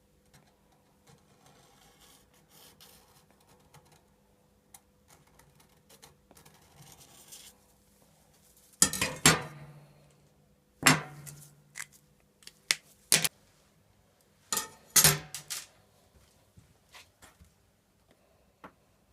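Faint scraping and handling, then a string of sharp metal knocks and clanks, some in quick pairs, each with a short low ring: steel pieces or tools being knocked and set down on a workbench.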